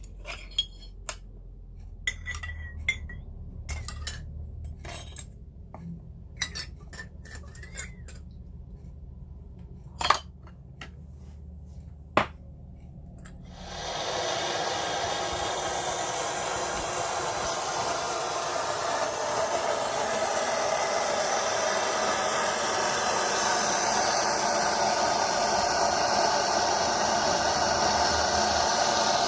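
Light clinks and taps of small metal pieces and tools being handled at a jewellery bench. About 14 seconds in, a gas soldering torch is lit and runs with a steady loud hiss.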